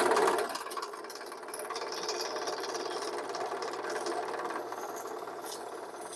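Drill press running with a twist bit cutting into plywood, loud for the first half second, then the motor running on more steadily as the bit is fed into and out of the board.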